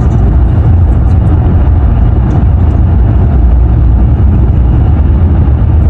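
Steady low rumble of road and engine noise inside a vehicle moving at highway speed, heard through the cabin.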